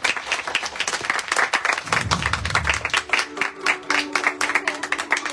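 Audience clapping, dense and irregular, after a broadcast performance ends. From about three seconds in, a faint steady tone sits under the clapping.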